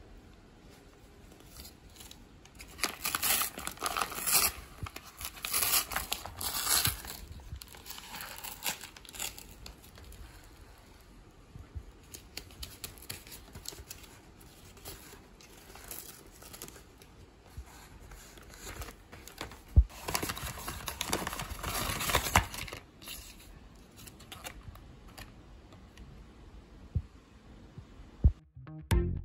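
A kraft paper mailer envelope handled by hand: paper crinkling and tearing, in two louder spells about three seconds in and again about twenty seconds in, with light rustles and small clicks between.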